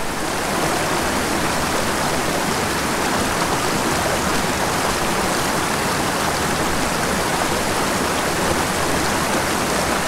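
Small mountain creek running over boulders and cobbles in small cascades: a steady, even rush of water.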